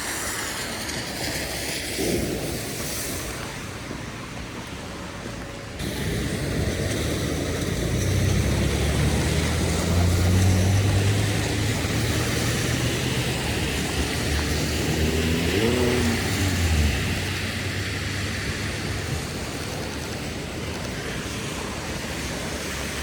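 Heavy rain hissing on a city street, with a heavy vehicle passing close: a low hum builds from about eight seconds in, is loudest around ten seconds, and carries a short rising-then-falling whine before fading about seventeen seconds in.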